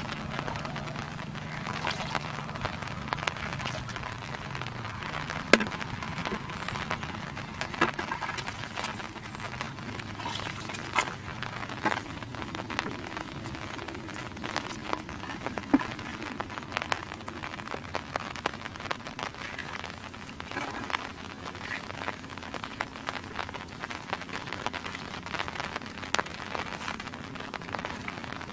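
Water splashing and dripping in a shallow muddy pond: irregular crackling clicks and splashes over a steady hiss.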